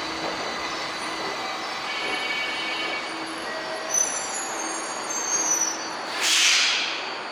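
Tokyo Metro 1000 series subway train coming to a stop at the platform, with steady running noise, held whining tones and some high-pitched wheel and brake squeal. About six seconds in there is a loud hiss of compressed air from the air brakes as the train halts.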